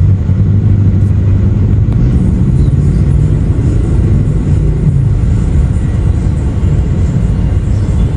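Road traffic close by: car and motorcycle engines running past, a steady low rumble with an engine hum.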